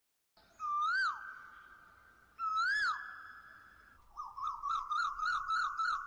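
Bird-call whistles: two drawn-out whistled calls, each rising and then dropping away, followed about four seconds in by a quick warbling run of about four notes a second.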